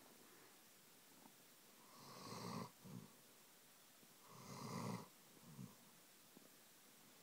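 A sleeping German shepherd snoring: two long snores, about two and four and a half seconds in, each followed by a short, softer breath.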